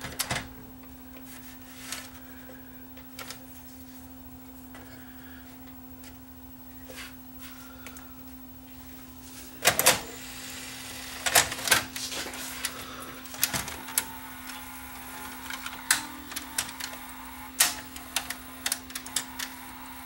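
Scattered clicks and taps of hands and tools working on an open VHS recorder's mechanism, sparse at first and coming thick and fast from about halfway through, over a steady low hum.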